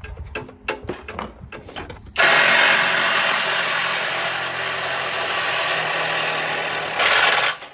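Handheld power drill running steadily for about five seconds, then stopping abruptly, most likely driving out a fastener. Before it comes a run of knocks and clinks.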